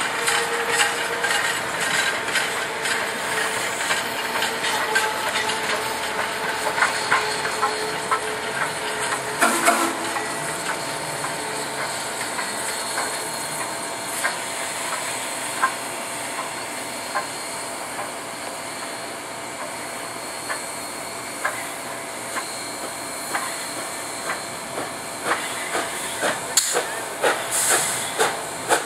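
Passenger train rolling past, its wheels clicking over the rail joints, with steam hissing as TVRM's 2-8-0 steam locomotive No. 610 goes by. Near the end comes a run of sharp, evenly spaced beats.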